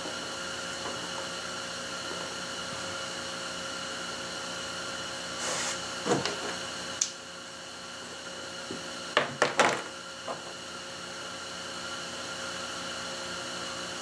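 Steady workshop hum with a few light clicks and taps of hands handling parts on a plastic kayak deck, the sharpest three close together a little over two-thirds of the way through.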